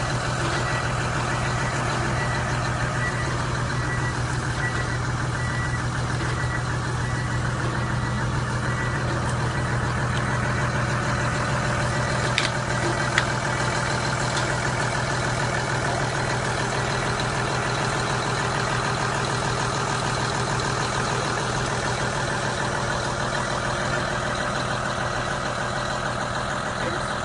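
Tracked snow groomer's diesel engine running steadily while it powers a front-mounted roller winder reeling in safety netting. Two short clicks about halfway through.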